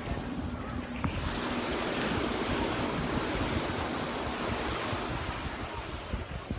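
Surf breaking and washing up on a sandy beach, a wash of hiss swelling about a second in, with wind rumbling on the microphone.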